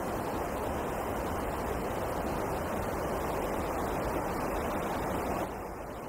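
Winter wind blowing through a forest: a steady, even rush that swells slightly, then drops suddenly to a quieter level about five and a half seconds in.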